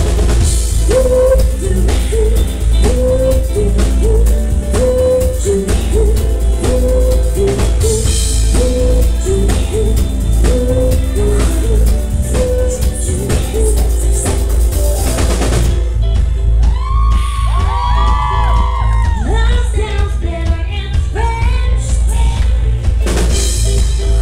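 Live pop band with drum kit and bass playing while a woman sings. About two-thirds of the way through, the drums drop out, leaving the voice sliding between notes over a thinner backing, and the full band comes back in near the end.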